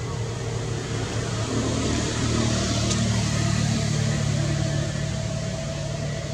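Steady hum of a motor vehicle's engine, swelling about two seconds in and easing off again, with a brief tick in the middle.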